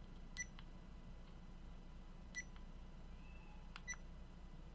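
Buttons on a small Aokon action camera pressed three times, each press a faint sharp click with a short electronic beep and a lighter click as the button is let go.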